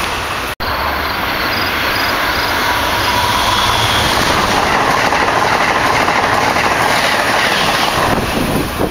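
Amtrak Acela Express high-speed electric trainset running past at speed: a steady rush of wheel and air noise, with faint clicking of wheels over the rails. The sound breaks off for an instant about half a second in.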